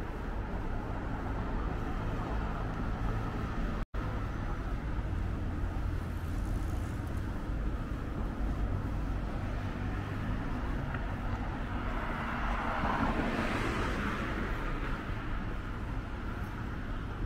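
Road traffic on a city street: a steady rumble of passing cars, with one vehicle passing close and louder about twelve to fourteen seconds in. The sound cuts out for an instant about four seconds in.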